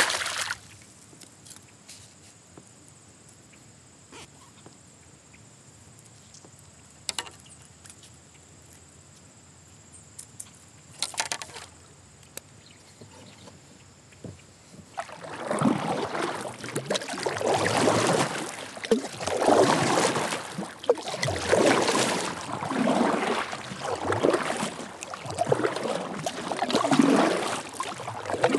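A northern pike splashes back into the water as it is released beside the kayak. Then a quiet stretch with a few faint clicks, and about halfway through, a kayak paddle starts stroking through the water, alternating sides about once a second.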